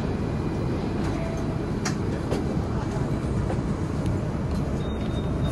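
Hong Kong double-decker electric tram running along its tracks: a steady low rumble, with a couple of sharp clicks about two seconds in.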